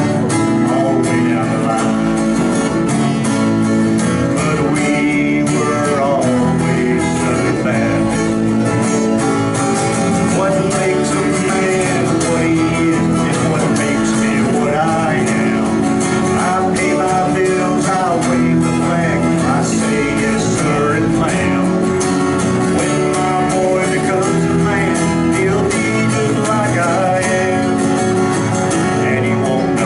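Live country band playing: a strummed acoustic guitar with electric guitars, steady throughout.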